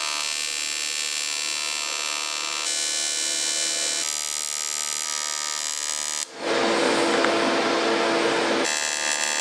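Electric arc welding: a steady, buzzing arc for about six seconds, a brief break, then a second, noisier weld run.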